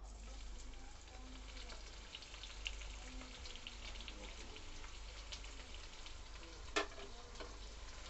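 Sliced onions sizzling and crackling as they go into hot oil with cumin seeds and are stirred with a silicone spatula, the sizzle starting as the onions hit the oil. One sharp knock about seven seconds in.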